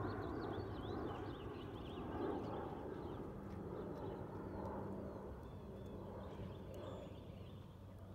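Outdoor background noise, a steady low hum and rush, with small birds chirping over it again and again, most busily in the first couple of seconds.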